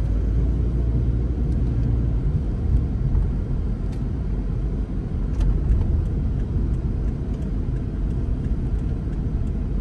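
A car driving along a city street: a steady low rumble of engine and road noise.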